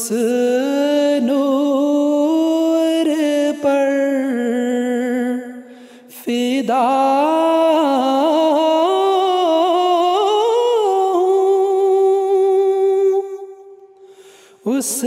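A man singing an Urdu nazm unaccompanied, in two long drawn-out phrases of held, ornamented notes. The voice breaks off briefly about six seconds in and fades out near the end.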